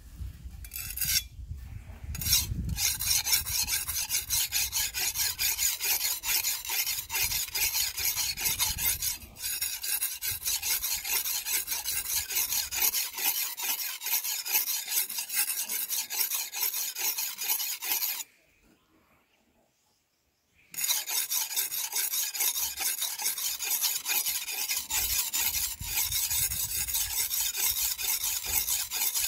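Steel cleaver blade being sharpened on a whetstone: quick, repeated scraping strokes of metal across stone. The strokes stop for about two seconds a little past the middle, then start again.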